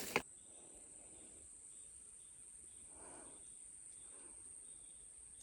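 Insects trilling in a steady, high-pitched drone, with a fainter chirp pulsing about two or three times a second.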